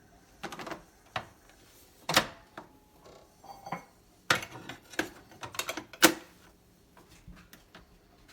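A series of irregular sharp knocks and clicks, about seven of them, unevenly spaced, with the loudest a little past two seconds in and at about six seconds.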